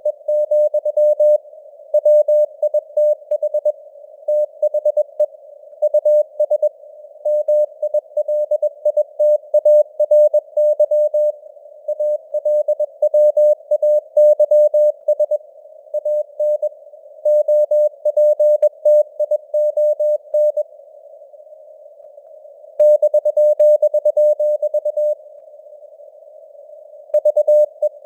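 Morse code (CW) sent at 21 words per minute as a single steady tone keyed on and off in dots and dashes, over a narrow band of simulated radio hiss. There are short gaps between words and two pauses of about two seconds in the later part.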